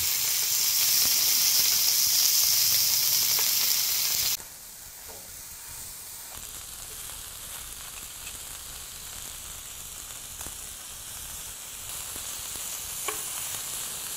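Slices of marbled hanwoo chuck flap and sirloin frying on a hot griddle pan. A loud, even sizzle drops abruptly to a quieter, steady frying hiss about four seconds in, with a few light clicks of tongs and kitchen scissors against the pan.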